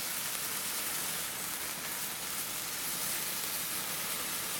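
Several Phantom Fireworks neon sparklers burning together, giving a steady fizzing hiss.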